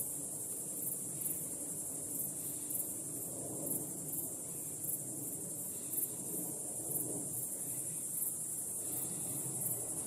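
Insects chirping in a high-pitched, regular pulsing rhythm, over a low steady background rush.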